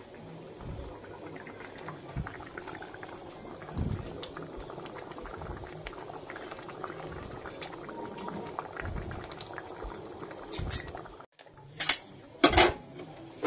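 Thick chana dal, nearly cooked down, bubbling at a simmer in a steel kadai on a gas stove, with small pops of bursting bubbles. Near the end, after a brief drop-out, come a few sharp metal clanks of kitchenware.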